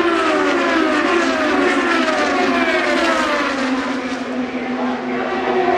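IndyCar open-wheel race cars, with twin-turbo V6 engines, running past at speed. Their engine notes glide down in pitch one after another as they pass, and another car comes in near the end.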